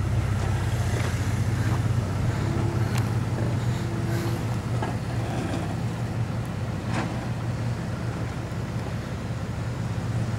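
Full-size Ford Bronco's engine running slowly and steadily as the truck crawls down a steep loose-rock switchback, with a few scattered clicks.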